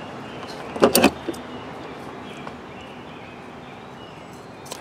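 A quick cluster of sharp metal clicks about a second in, as a pair of scissors is picked up off the table among other hand tools; after that only a faint steady background hiss.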